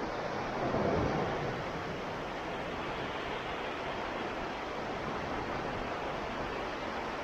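Gentle Baltic Sea waves washing on the shore, a steady rush with one louder wave breaking about a second in.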